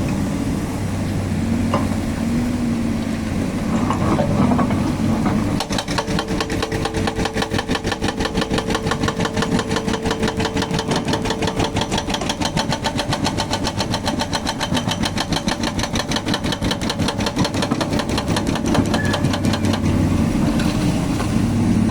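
Volvo excavator's diesel engine running steadily. About six seconds in, its hydraulic breaker hammer starts pounding at a rapid, even rate. The hammering stops a couple of seconds before the end, leaving the engine running.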